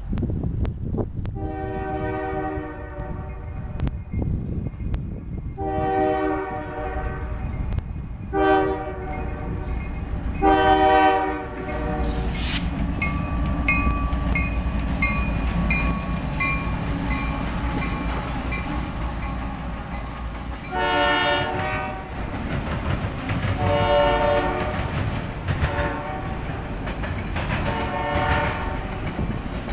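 CSX freight train passing: the locomotive's air horn sounds the grade-crossing signal of two long blasts, one short and one long, then the same pattern again near the end. In between, the diesel locomotives rumble past and steel wheels clatter steadily over the rail joints as autorack cars roll by.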